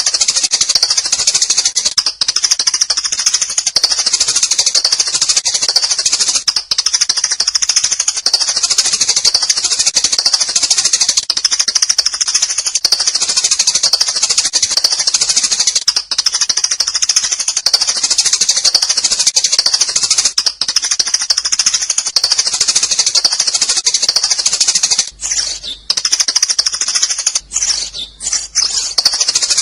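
A flock of sparrows chirping in a loud, dense, unbroken chatter of high calls, with a few short breaks near the end.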